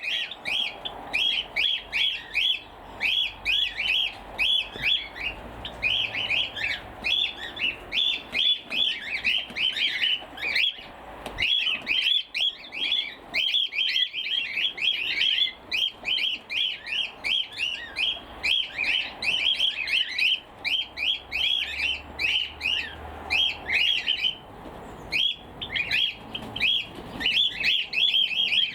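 Cockatiels squawking: a flock calling non-stop in short, sharp, shrill calls, several a second, with a brief lull a little past the middle.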